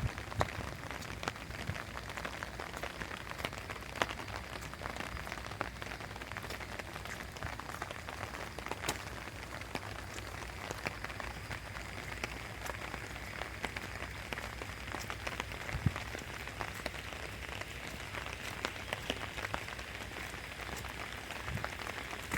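Steady rain falling, with many scattered small drop taps close by.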